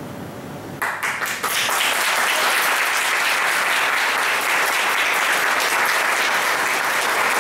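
Audience applauding: the clapping breaks out about a second in, swells within half a second to full, dense applause and holds steady.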